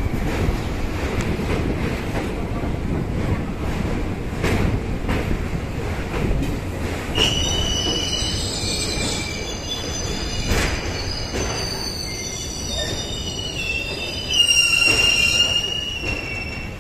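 Passenger train running over a steel truss rail bridge, a steady heavy rumble of the wheels on the track with a few sharp knocks. High-pitched wheel squeal rings out for a few seconds about seven seconds in, and again, louder, near the end.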